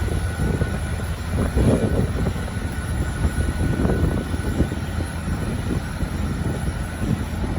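Rolls-Royce Trent XWB jet engines of an Airbus A350-900 running with a loud, steady low rumble and a faint high whine.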